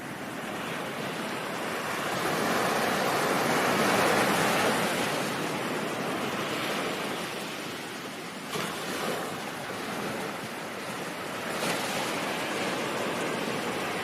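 Ocean surf: a wave swells up to a peak about four seconds in and washes back, followed by lower surf with two brief splashes in the second half.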